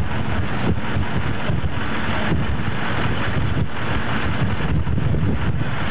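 Steady low rumble of wind buffeting the camcorder microphone, over the running engines of military vehicles.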